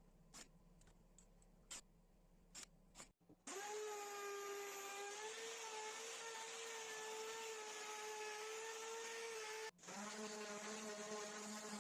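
A few light taps, then an electric power tool's motor starts about three seconds in and runs at a steady whine. Near the end it breaks off for an instant and runs on at a lower pitch.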